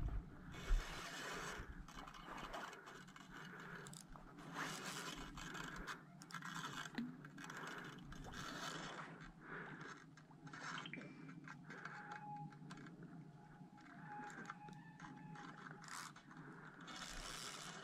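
Spinning reel being cranked against a heavy hooked fish, its gears whirring and scraping in uneven spells.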